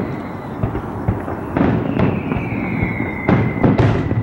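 Distant aerial fireworks shells bursting: a string of separate booms and crackles, coming faster toward the end.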